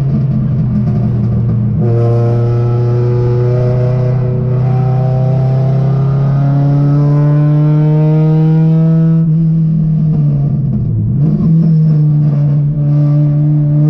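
Race car engine heard from inside the cabin, pulling hard with its pitch climbing steadily. The pitch breaks and drops once about two seconds in, like an upshift, then climbs again. Around ten seconds in it eases and dips before pulling again.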